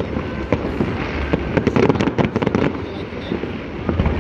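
Fireworks going off: a rapid, irregular series of sharp bangs and crackles, thickest about halfway through.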